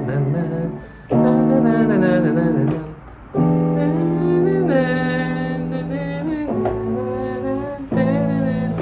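Yamaha MX61 synthesizer keyboard playing sustained block chords, D major 7 sus2 then E minor 7 sus2 then A6, with the chord changing every few seconds after brief gaps. A wavering melody line of the song's solo sounds over the chords.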